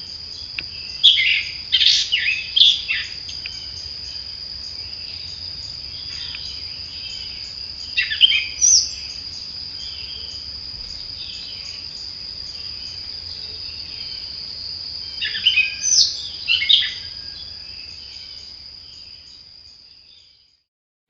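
Wild birds singing in short bursts of chirps, three times, over a steady high-pitched trill; the whole fades out near the end.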